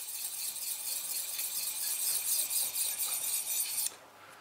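A knife edge being stroked along a super-fine EZE-LAP diamond sharpener: a fine, high rasping hiss in rapid repeated strokes that stops about four seconds in. This is the finishing grit, which shines up the edge and takes away the coarser file marks.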